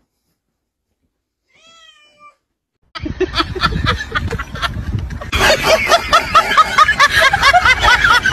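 Cats meowing in a rapid run of short, high calls, several a second. The run starts suddenly about three seconds in and grows louder past the middle, with one faint call just before it.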